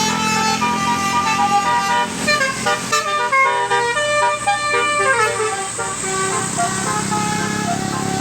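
A bus's basuri telolet musical air horn playing a quick melody of short stepped notes, over a low steady hum.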